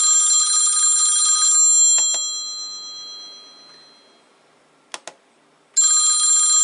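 Incoming-call ringtone on an Apple device, a loud ring of high steady tones that stops about one and a half seconds in and fades away, then starts again near the end. Two short clicks fall in the quiet gap.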